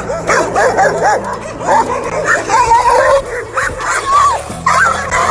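Rapid, overlapping animal calls, yelping and barking, over background music.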